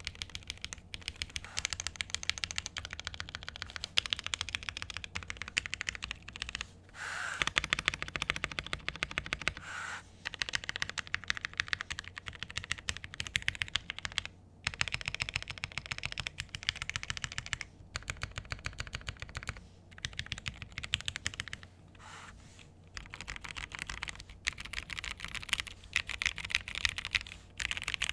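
Continuous typing on a Gentleman65 mechanical keyboard with a bamboo case, acrylic plate, lubed Gateron Ink Black V2 linear switches and GMK keycaps. The rapid clicks of the keystrokes come in runs broken by short pauses every few seconds.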